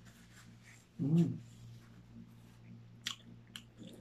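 A man's single short voiced grunt about a second in, then a few light clicks of chopsticks against a plastic food box near the end.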